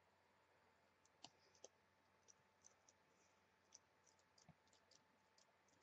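Near silence: room tone with a faint steady hum and a scattering of faint, irregular clicks.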